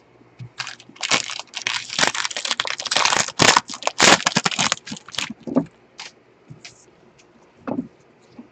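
Plastic wrapper of a 2020 Bowman baseball card pack being torn open and crinkled by hand: a dense crackling rustle lasting about four seconds, starting about a second in. It is followed by a few scattered short rustles and clicks as the cards are handled.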